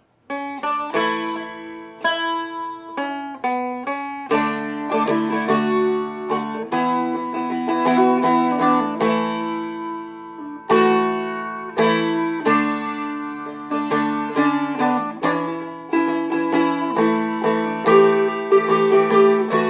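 Seagull Merlin M4, a four-string fretted dulcimer-style instrument, strummed and picked: a melody line over a steady drone, with the notes held and left ringing as the end of a verse moves into the chorus. The sound fades briefly about halfway through before the strumming picks up again.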